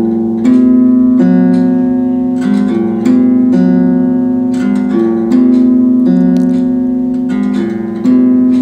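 Background music of strummed guitar chords, with a new chord about every second.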